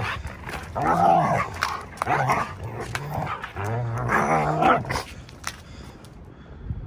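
Two dogs play-wrestling, growling and snarling in repeated short bursts. The growls die down about five seconds in.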